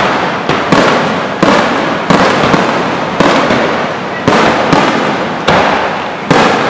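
Aerial firework shells bursting in a steady volley, about one loud bang a second, each trailing off into a fading crackle before the next.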